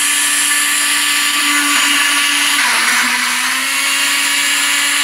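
Countertop blender running, puréeing boiled cauliflower with cream; a steady whirring motor whose pitch drops slightly a little past halfway.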